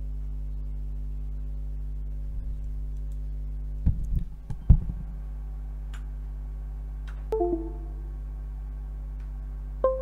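A steady low electrical hum, with a few dull thumps about four seconds in, the loudest sounds here. Near the end comes a brief chime of a few falling notes, twice.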